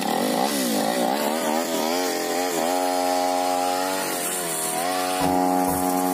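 Tasco 328 brush cutter's two-stroke engine revving up and down under the throttle, then running at a steadier high speed from about three seconds in.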